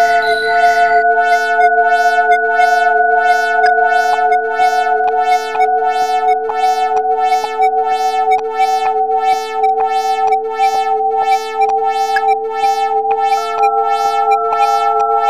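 Synthesizer music: a held electronic chord over a steady pulse of short keyboard notes, about two a second.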